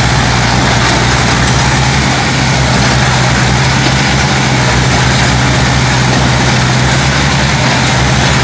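Diesel engines of two Mahindra tractors, one a 575 DI, running under load as the tractors pull against each other in a tug of war. The sound is a loud, steady low drone that keeps the same pitch throughout.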